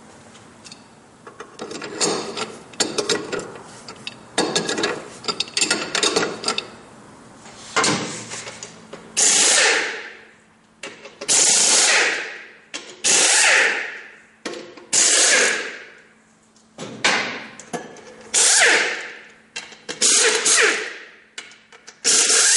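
Air impact wrench running in repeated short bursts, about eight in the second half, each starting hard and fading, as it spins the lug nuts off an ATV's rear wheels. Rattling tool sounds come before the bursts.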